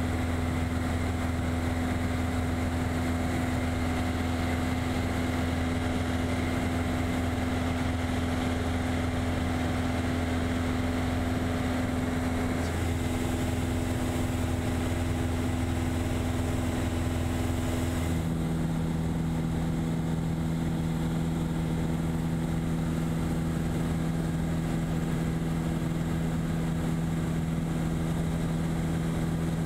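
Piper PA-28 light aircraft's piston engine and propeller droning steadily in cruise, heard inside the cabin. Its pitch changes abruptly about 13 seconds in and again about 18 seconds in.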